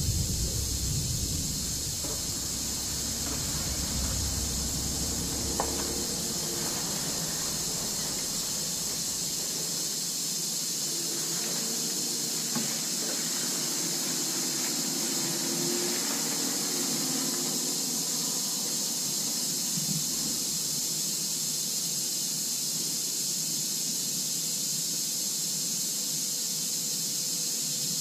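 A steady high-pitched hiss, with a few faint knocks and clicks and a low rumble that fades out in the first few seconds.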